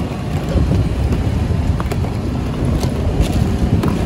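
Steady low rumble of roadside street noise, with a few light clicks scattered through it.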